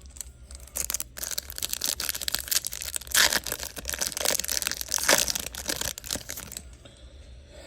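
Foil trading-card pack wrapper and cards crinkling and rustling in the hands, a dense run of crackles that dies away about seven seconds in.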